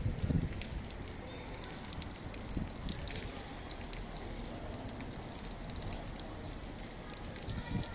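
Outdoor ambience of a busy pedestrian square: a steady background hiss with scattered faint clicks, and gusts of wind rumbling on the microphone near the start.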